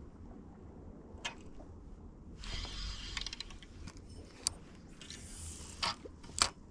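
A spinning fishing reel, a Shimano Miravel, being cranked for about a second, a short whir about two and a half seconds in. A few sharp clicks and knocks are scattered around it.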